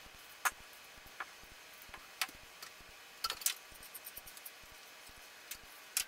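Scattered light clicks and ticks at irregular intervals over faint background hiss, with a quick double click about three and a quarter seconds in.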